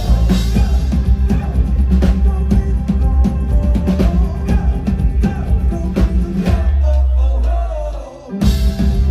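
Pop-rock band playing amplified, with drum kit and heavy bass. The bass and drums drop out for a moment about eight seconds in, then the full band comes back in.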